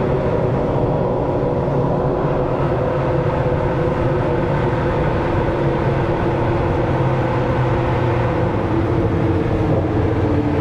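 Sport motorcycle with a straight-through 4-into-1 exhaust running at a steady engine speed while riding, its engine note even throughout.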